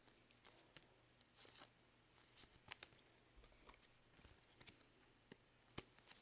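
Near silence with faint, scattered clicks and rustles of trading cards being handled and set down.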